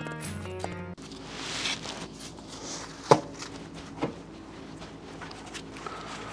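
Two sharp knocks about a second apart, roughly three seconds in: taps on a Jeep Wrangler JL's front hub-and-bearing assembly to loosen it from the steering knuckle, where it is tightly seated.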